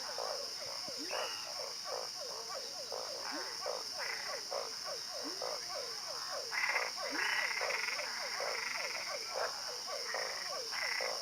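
A chorus of frogs calling: many short croaks that slide down in pitch, several a second and overlapping, a little louder from about six to eight seconds in. A steady high-pitched drone runs underneath.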